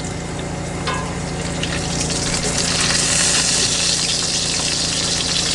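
Food frying and sizzling in a pan on a Coleman dual-fuel camp stove, the sizzle growing louder about two seconds in.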